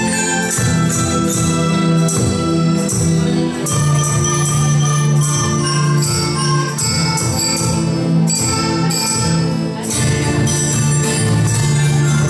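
School instrumental ensemble playing an Aymara sikura tune from Andean folklore: mallet-struck metallophones ring out a bright, steadily struck melody over held notes from wind instruments.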